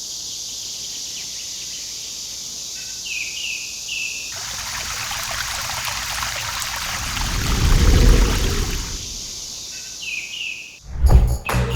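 Summer forest ambience: insects buzz steadily and high, and a bird gives a few short rising chirps twice. In the middle a stretch of rushing water comes in and swells, peaking about eight seconds in. Background music starts with a loud hit about a second before the end.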